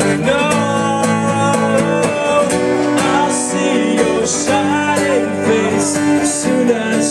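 Live acoustic guitar strumming with a man singing: a country-pop song played by a two-brother acoustic duo.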